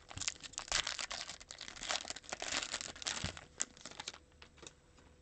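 Foil wrapper of a Panini Prizm basketball card pack crinkling as it is torn open by hand and the cards are pulled out; the dense crackling dies away about four seconds in.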